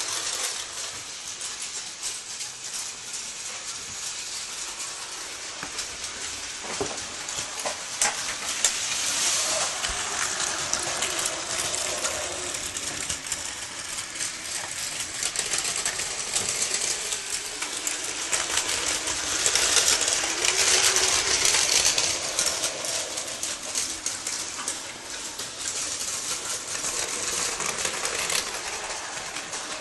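Battery-powered toy trains running on plastic track: a steady whirring and clattering that grows louder twice, about nine seconds in and again around twenty seconds, with a few clicks along the way.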